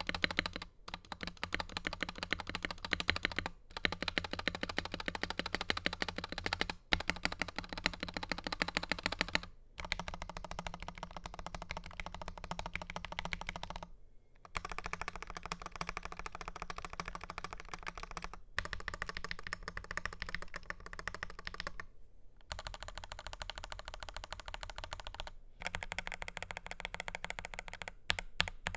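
Fast, steady typing on a Dark Project KD83A mechanical keyboard with G3ms Sapphire switches, a stainless steel plate and PBT double-shot keycaps: a dense clatter of keystrokes, broken by brief pauses every few seconds.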